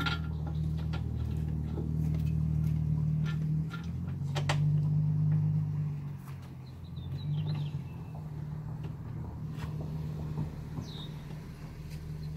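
A steel swivel seat base being handled and bolted to a van floor: scattered short metal clicks and knocks as it is shifted and its bolts are started, over a steady low droning hum that swells and eases. A bird chirps briefly near the end.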